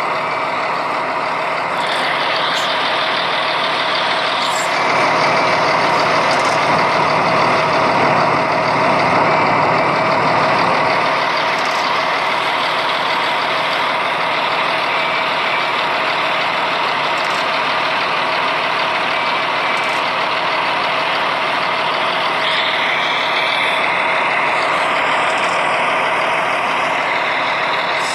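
Buses and traffic on a rain-wet street: a steady rushing of engines and tyres on wet road, swelling for several seconds early on as a vehicle passes. A short air-brake hiss comes near the end.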